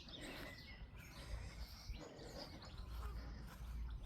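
Faint birdsong: scattered short chirps from small birds, over a low steady rumble.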